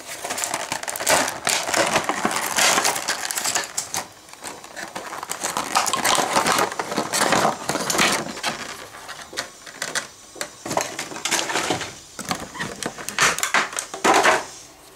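Cardboard and clear plastic toy packaging being handled and crinkled: irregular crackling and rustling, loudest in a burst about fourteen seconds in.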